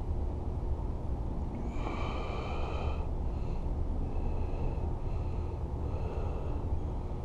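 Steady low outdoor rumble, with a high-pitched call about two seconds in and then four fainter, shorter repeats about a second apart.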